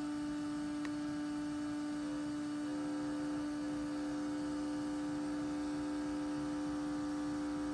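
Cooling fan of a Spektrum Avian 80 A ESC running: a steady hum on one pitch with fainter overtones, the motor itself stopped.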